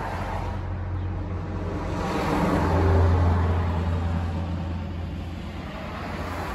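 A car driving past, its road and engine noise growing louder to a peak about halfway through and then fading away.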